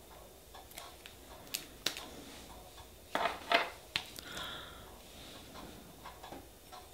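Small clicks and taps of nail-stamping tools and plates being handled on a tabletop, with two louder knocks close together about three seconds in.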